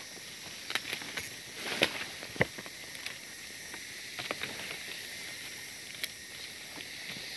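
Footsteps crunching through dry leaf litter and brushing through undergrowth, with scattered crackles and twig snaps, the loudest about two and a half seconds in, over a steady high hiss of forest background.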